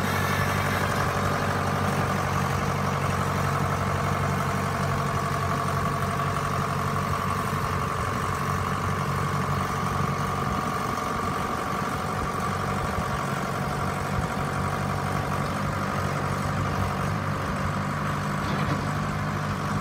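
John Deere 6420L loader tractor's four-cylinder diesel engine running steadily at low speed as the tractor is driven slowly, with a steady whine sitting above the low engine note.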